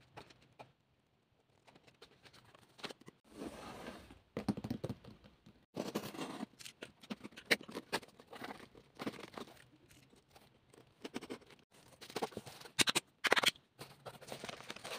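Hands handling a photobook and then a cardboard shipping box, opening its flaps: irregular scraping and rustling of paper and cardboard with sharp taps.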